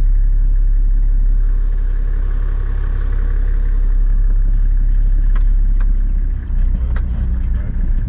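A ute's engine running as it drives slowly along a rough dirt track, heard from inside the cab as a steady low drone. There are a couple of sharp rattles about five and seven seconds in, and the sound turns uneven and bumpier near the end.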